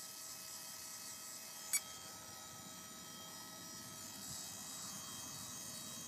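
Faint, steady high electronic whine and buzz made of several fixed tones, from the powered-up helicopter's swashplate servos holding position. A single sharp click comes a little under two seconds in.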